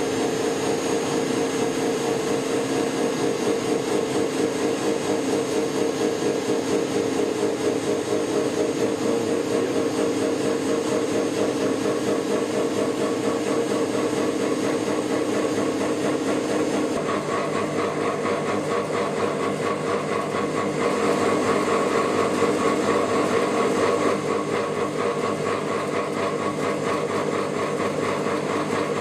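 Gear hobbing machine running steadily as it cuts the teeth of a gear, a constant machine hum with several held tones. About two-thirds of the way through the sound shifts and a higher hum joins.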